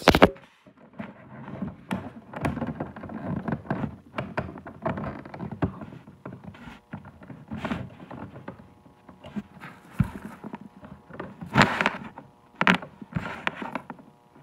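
An old animatronic's speaker giving out garbled, crackling noise in irregular bursts over a faint steady hum, instead of a clean voice track: the sign of a fault that the owner thinks could be the speaker or the power adapter.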